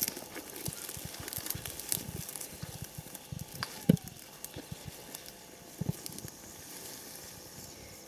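Footsteps tramping through tall dry grass and weeds, with rustling stems; the steps thin out after about six seconds. A sharp thump about four seconds in is the loudest sound.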